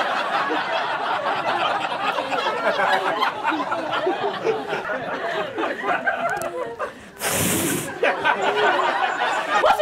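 Audience laughing and chuckling, with some murmured talk mixed in. About seven seconds in comes a loud hiss lasting under a second.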